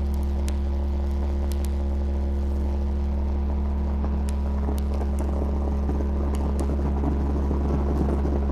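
Cabin drone of a Bombardier Dash 8-300 turboprop: a steady low propeller hum from its Pratt & Whitney PW123 engines and four-bladed propellers, with light clicks and rattles here and there. A rougher rumble builds near the end.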